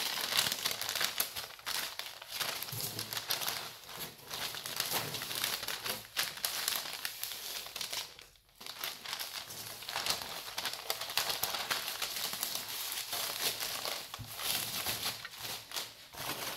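Parchment paper crinkling and rustling as it is wrapped and pressed around a sponge cake to roll it up, with a short pause about eight seconds in.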